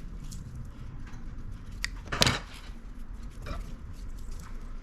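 Handling noises: a few light clicks and one sharp knock a little over two seconds in, over a low steady hum.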